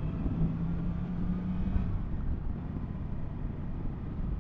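Yamaha MT-10 SP's inline-four engine running at a steady cruise, with wind noise on the microphone; the steady engine note fades into a duller rumble about two seconds in.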